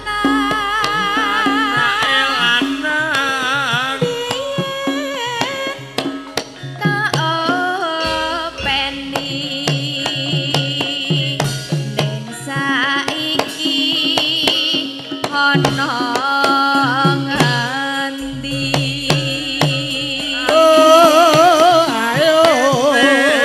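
A sinden, a female Javanese singer, singing a wavering, ornamented melody into a microphone over gamelan accompaniment with steady drumming.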